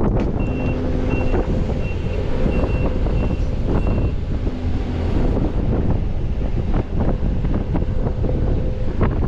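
A heavy machine's diesel engine running, with its backup alarm beeping about six times in the first four seconds and then stopping.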